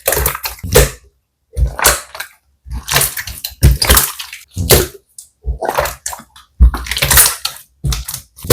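Wet slime being squeezed and pressed by hand, squishing in repeated bursts about once a second with short silent gaps between.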